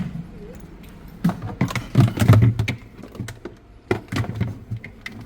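Irregular clicks and knocks of things being handled, heaviest and most frequent about two seconds in.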